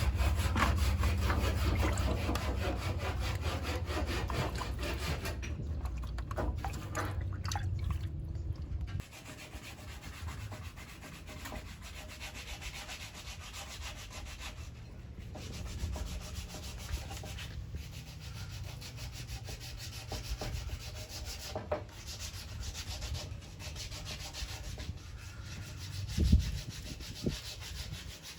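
Wooden boards being sanded, a continuous scratchy rubbing made of many quick strokes. A steady low hum runs underneath for the first nine seconds and stops suddenly, and there is a single thump near the end.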